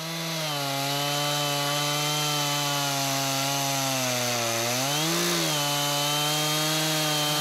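Chainsaw running at full throttle while milling a log on a chainsaw sawmill, holding a steady high engine pitch. About four and a half seconds in the pitch sags briefly and then climbs back.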